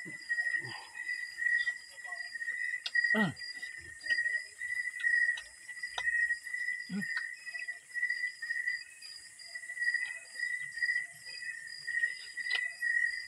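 Night insects chirping steadily in a high, pulsing trill that repeats about once or twice a second, with a few faint clicks and two short falling sounds about three and seven seconds in.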